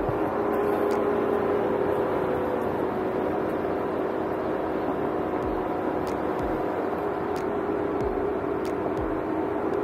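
Ford Bronco running at a steady pace on a dirt trail: an even engine and road hum that holds one pitch throughout, with a few faint clicks.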